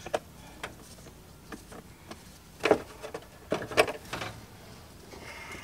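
Scattered clicks and knocks of hand tools and hard plastic parts as the truck's heater and air-conditioner box is worked loose behind the removed dashboard, with two louder knocks a little under three and about four seconds in.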